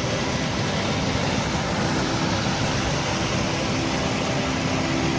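Waterfall rushing steadily, running high after overnight rain.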